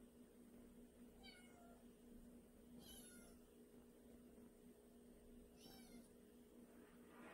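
Domestic cat meowing faintly, four short meows a couple of seconds apart.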